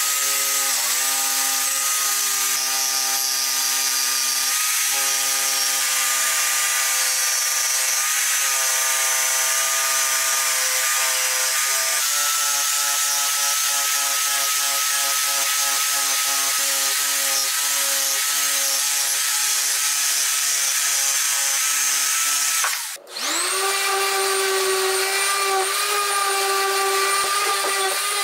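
Corded jigsaw running steadily as it cuts a curve through a pine board. It stops about 23 seconds in, and a random orbital sander spins up and runs steadily.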